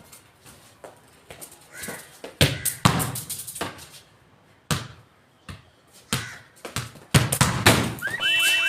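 A series of irregular thumps and knocks, the loudest clusters about two and a half seconds in and again about seven seconds in. Near the end comes a quick run of short repeated chirps over a steady high tone.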